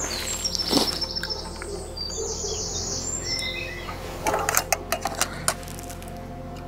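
Small birds chirping and singing, with a sharp knock about a second in and a quick run of clicks and knocks from about four to five and a half seconds in, typical of camera gear being handled and set up on a tripod.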